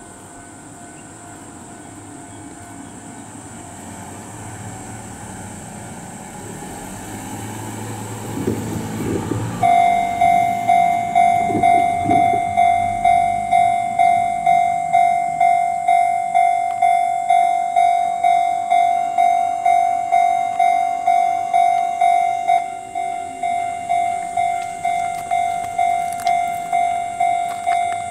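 Japanese railway level-crossing warning bell ringing: a steady electronic ding that starts abruptly about a third of the way in and pulses about twice a second, dropping in level about two-thirds through. Before it, the low rumble of an approaching electric train slowly builds.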